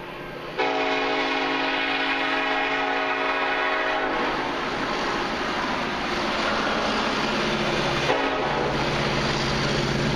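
Freight locomotive air horn sounding the long blasts of a grade-crossing signal. The horn comes in about half a second in, holds to about eight seconds, then breaks off. Through the break, the diesel engines of the approaching lead locomotives are heard running.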